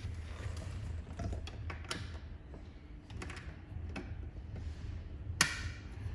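Scattered small clicks and light knocks of a foot-switch cable connector being handled and plugged into its socket on a laser welder, with one sharper click about five seconds in, over a steady low hum.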